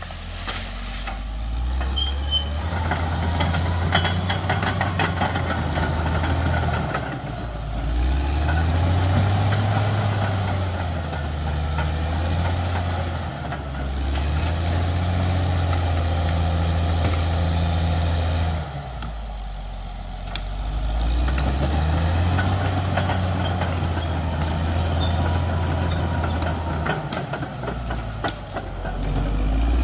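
Caterpillar D6R XL bulldozer's diesel engine working under load, its note rising and falling every few seconds as it pushes and eases off, dropping lowest about two-thirds through. Occasional short knocks.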